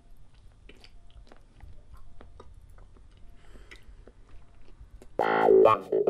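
Faint, scattered wet clicks and crunches of someone chewing and biting, then about five seconds in a loud electric guitar riff kicks in suddenly.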